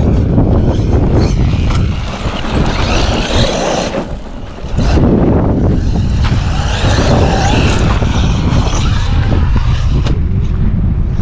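Traxxas Maxx V2 electric RC monster truck being driven hard, its motor and tyres surging in two runs of acceleration over a steady low rumble.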